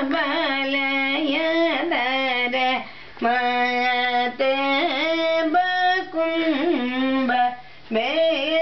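A woman singing a devotional song in long held notes that glide between pitches, with short pauses for breath.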